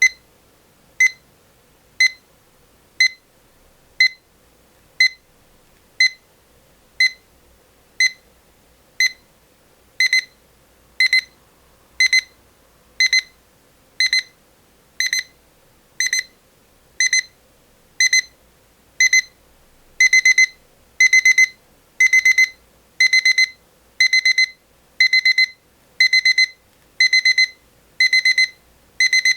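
Rhythm 8RZ151-003 alarm clock's electronic alarm beeping once a second in a high tone. The alarm steps up as it goes: single short beeps at first, longer pulsed beeps from about ten seconds in, and longer, louder beeps from about twenty seconds.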